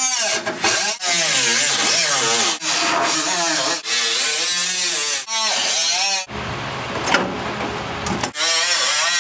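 Abrasive cutoff wheel cutting through rusted sheet-metal floor in several short passes. Its whine wavers and dips in pitch as the wheel bites into the metal and eases off. Past the middle there is a stretch of about two seconds of duller, steady noise without the whine.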